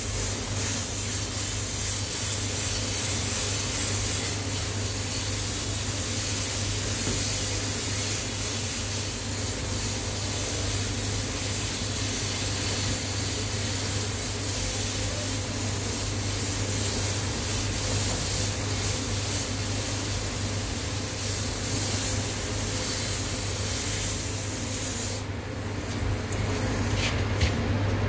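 LPH-80 air spray gun hissing steadily as it sprays clear coat over base coat on a car bumper. The spraying stops about 25 seconds in, followed by a few light clicks, over a steady low hum.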